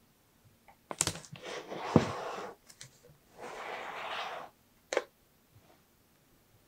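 Cardboard box being handled and turned over: a knock, then two stretches of scraping, rustling noise about a second each, the first with a thump in it, and a click near the end.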